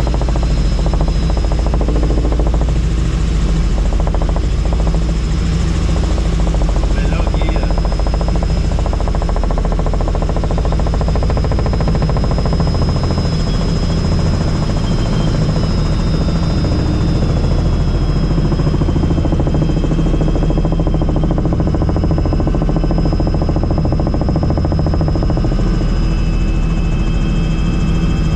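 Helicopter in flight, running steadily: a loud, even low rumble from the rotor and engine with a thin, steady high whine above it.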